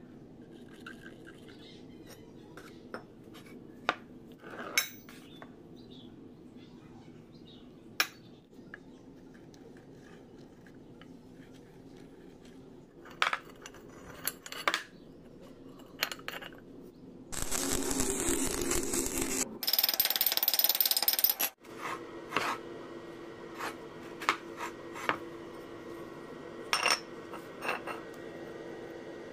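Steel pieces clinking and knocking together in a metalworking shop, in scattered single knocks. Just past the middle come two loud, harsh stretches of noise, each about two seconds long, one right after the other.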